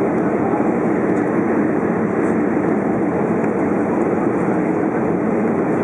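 Steady cabin noise of an Airbus A320 in flight on its arrival descent: an even rush of jet engine and airflow noise heard from a window seat inside the cabin.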